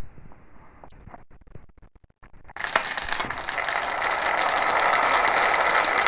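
Marbles clattering densely along a marble run track, a steady rattle that sets in about two and a half seconds in after a few scattered clicks.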